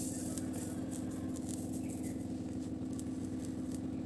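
Ghee sizzling and crackling in a small pan as mustard seeds, cumin powder and turmeric fry in it for a tadka. A steady low hum runs underneath.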